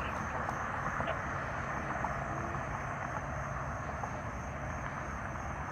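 Steady roadside ambient noise: an even hiss with a low hum underneath and no siren.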